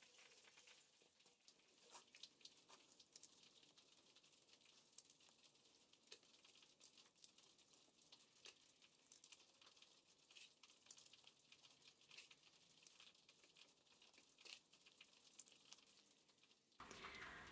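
Near silence, with faint, irregular light ticks and crackles scattered throughout.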